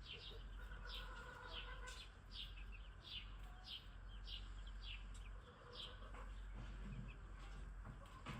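Chicks peeping: a run of short, high, falling peeps, about two a second, over a low steady rumble.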